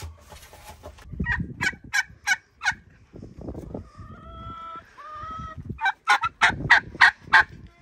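Tom turkey gobbling twice, each gobble a quick run of rattling notes, the second longer and louder than the first.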